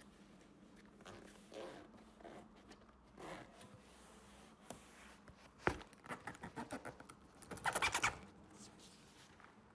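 Handling of a tool carry case, most likely being zipped closed. There is some faint rustling, a sharp knock just before six seconds in, a run of quick clicks, then a short rasping zip burst around eight seconds in.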